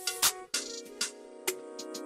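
Background music: a steady beat of about two hits a second under held chords.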